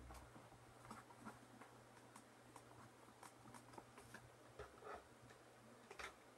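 Near silence with faint, scattered light taps and clicks of hands handling paper strips and tools, with a sharper click near the end.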